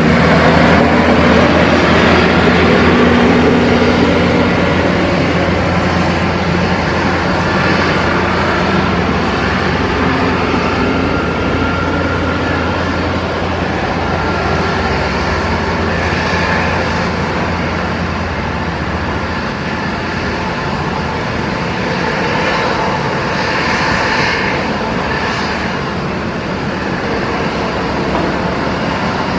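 Embraer ERJ 145 regional jet taxiing, its two rear-mounted turbofan engines running with a steady jet whine and rush. A low steady hum underneath stops about two-thirds of the way in.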